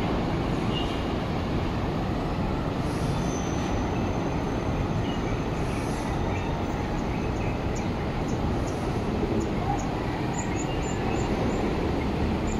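Steady rushing outdoor noise, with a series of short high chirps in the second half.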